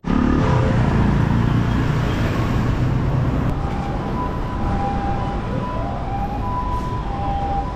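An emergency vehicle's two-tone hi-lo siren alternating between two steady pitches starts about halfway through, over a steady low street rumble.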